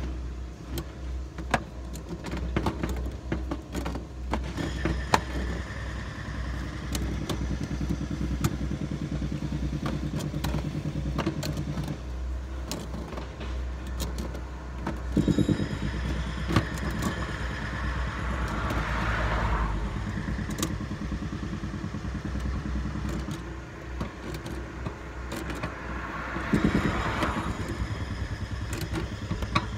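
Scattered clicks and clatter of pliers and plastic irrigation fittings being handled and clamped, over a steady low engine rumble from a running motor nearby.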